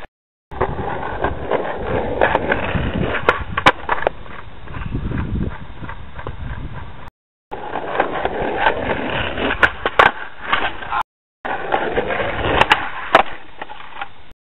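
Skateboard wheels rolling on a concrete sidewalk, with sharp clacks of the wooden deck popping and landing. The sound cuts out for a moment twice, about halfway and about three-quarters through.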